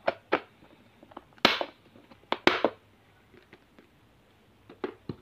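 Hard plastic container with a clip-on lid being handled: a series of sharp plastic clicks and clacks, the two loudest about a second and a half and two and a half seconds in.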